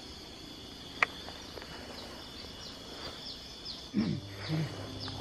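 Steady high-pitched insect chorus in a tropical orchard, with one sharp click about a second in. From about two and a half seconds on, a series of short falling high chirps, two or three a second, and a low brief sound near the end.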